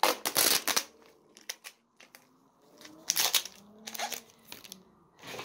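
Plastic wrap and packing tape crinkling and crackling as they are peeled off and bunched up by hand. There is a loud burst at the start, then quieter rustling, and another burst about three seconds in.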